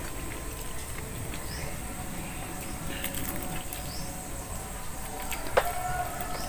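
Eating noises at a table: fingers tearing crispy fried chicken, chewing, and small clicks of hands on plates. One sharp clink with a brief ring comes about five and a half seconds in.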